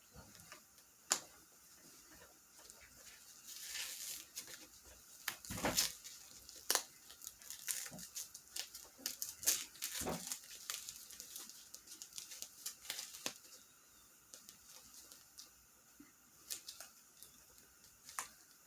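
Packing wrap being pulled and peeled off a ball-jointed doll, crinkling and rustling in irregular bursts with sharp clicks. The wrap does not tear and sticks in the doll's joints.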